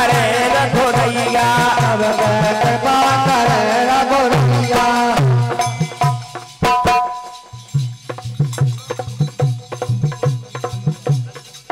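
Bundeli folk devotional music: a wavering melody over a steady hand-drum beat. About five seconds in the melody stops, and the drum and sharp percussion strokes carry on alone.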